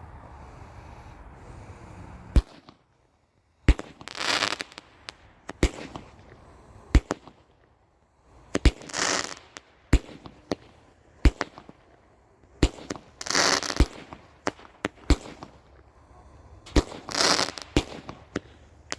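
Brothers Pyrotechnics 'Dark Journey' consumer firework cake firing. After a steady hiss in the first two seconds, sharp shots go off one after another. Four of them are followed by a burst lasting about a second.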